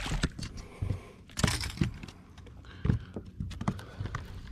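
Handling noise: an irregular run of clicks, taps and knocks as hands work a baitcasting rod and reel on a boat deck.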